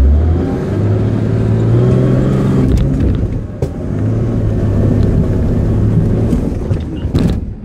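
Nissan GQ Patrol's engine working hard under load as the 4WD climbs a steep rock face, its revs rising and falling. A sharp knock comes about three and a half seconds in, and a short clatter of knocks near the end.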